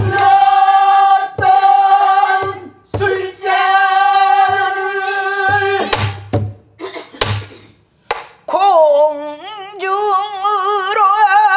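Female pansori singing: long held notes with a wide, wavering vibrato that slide in pitch near the end, accompanied by strokes on a buk barrel drum, deep thumps with a few sharp knocks.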